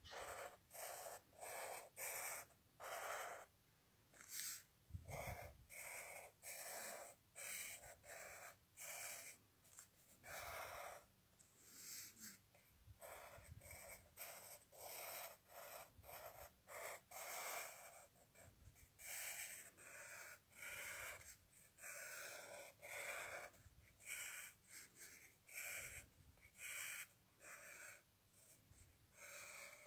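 Pen scratching across paper in short strokes as lines are drawn from dot to dot, one or two scratchy strokes a second, irregular and faint.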